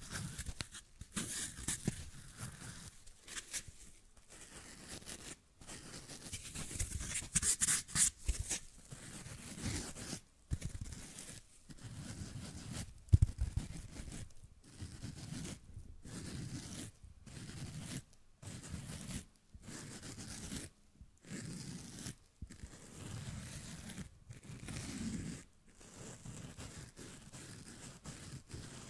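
Fingernails scratching and rubbing the fuzzy face of a foam sponge held right up to a microphone, giving a rough, crackly scratching. It comes in a string of strokes with short breaks, busier in the first third and about one stroke a second after that.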